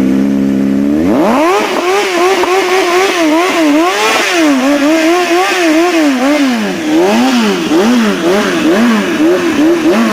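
Yamaha XJ6's inline-four engine through a full stainless-steel aftermarket exhaust with carbon-fibre tip, idling and then, about a second in, revved up and blipped over and over, the revs rising and falling roughly once a second. Loud throughout.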